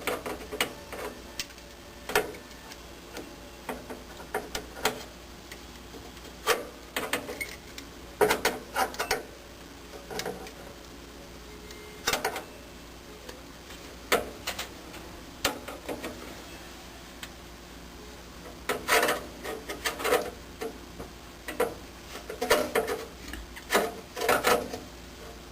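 Irregular small clicks and rattles in scattered clusters: furnace wires and their connectors being handled and fitted to a new pressure switch.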